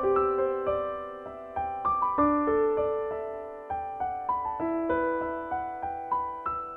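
Gentle background piano music: single notes and soft chords struck about twice a second, each left to ring and fade.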